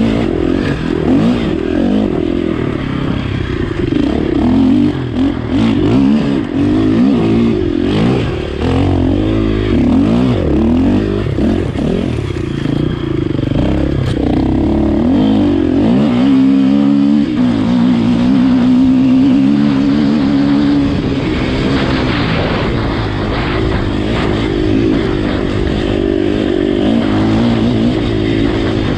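Enduro dirt bike engine revving hard while being ridden, its pitch rising and falling with throttle and gear changes. About halfway through the revs dip briefly, then hold steady for a few seconds.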